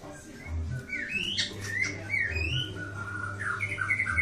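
Siri-siri songbird singing: a string of clear whistled notes gliding up and down, which about three and a half seconds in turns into a fast trill alternating between two pitches.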